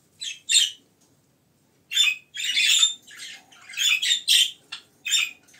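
Budgerigars chirping and chattering in short harsh bursts: two quick chirps, a pause of about a second, then a busier run of calls.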